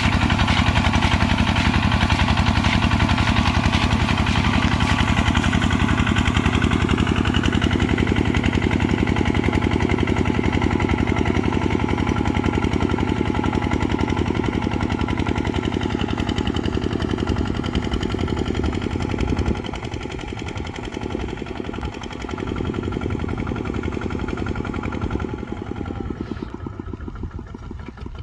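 Kubota RT140 single-cylinder diesel engine running steadily with a fast, even firing beat. It drops noticeably in loudness about two-thirds of the way through and fades further near the end.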